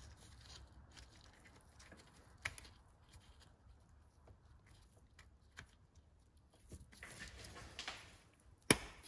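Faint handling noise and small clicks of hands fitting an electrical connector to the engine's thermostat, with one sharp click near the end.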